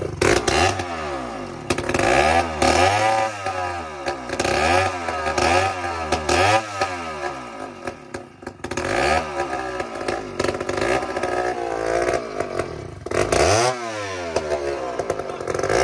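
Poulan S72 chainsaw's two-stroke engine running and being revved up and down over and over, its pitch rising and falling about once a second. It is running poorly: by the crew's account the carburetor is still not getting it enough fuel.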